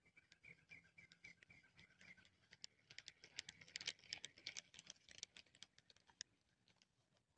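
Faint handling noise: a run of clicks and rustling as a sleeve brushes the camera while a fishing rod is handled, loudest about four seconds in. In the first two seconds a faint, evenly repeating chirp comes several times a second.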